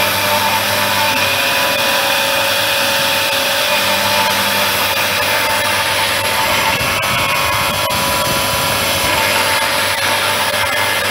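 Woodworking machine running steadily, a semi-automatic drilling and mortising machine for wooden doors: a continuous motor hum and whine over a broad rushing noise.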